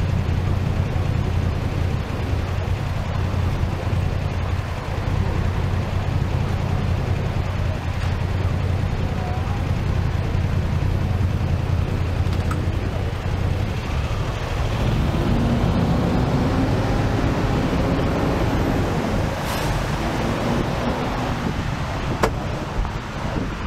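A sightseeing bus running through city traffic: a steady low rumble of engine and road noise. About two-thirds of the way through, a low engine tone comes up, and near the end there is a single sharp click.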